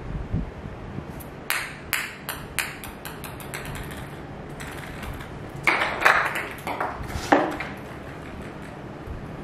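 A plastic ping-pong ball bouncing on a tiled floor, its clicks coming faster and fainter as the bounces die down. A few seconds later there is a louder cluster of knocks and scuffs.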